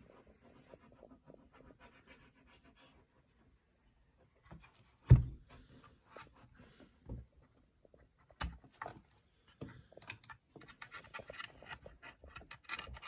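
Besides Studio M-One mechanical keyboard with Gateron Black Ink v2 linear switches and Tai-Hao keycaps being typed on: scattered keystrokes with one loud low thump about five seconds in, then quicker, steady typing from about ten seconds in.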